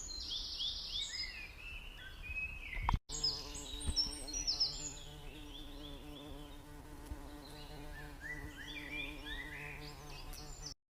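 Small birds chirping in quick repeated high calls, with a steady buzzing hum underneath from about three seconds in. Everything stops abruptly near the end.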